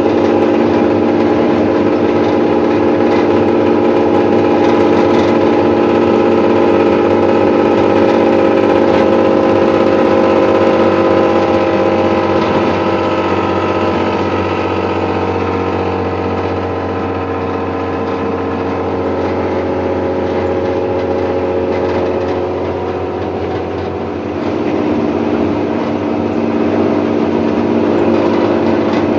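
Old Hino AK bus's diesel engine running steadily, its exhaust giving a snoring ('ngorok') note. The engine sound eases off for a stretch past the middle, then picks up again about five seconds before the end.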